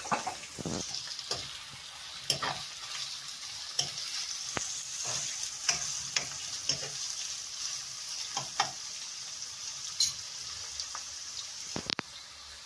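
Sliced onions with cinnamon sticks and cardamom sizzling in hot oil and ghee in a nonstick wok. A metal ladle stirs them, scraping and tapping against the pan at irregular intervals.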